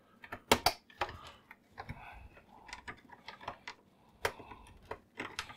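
Irregular clicks and light scraping of a screwdriver against the plastic and metal parts inside an opened HP ThinkJet printer, as a small connector is worked loose. The sharpest clicks come about half a second in and near the end.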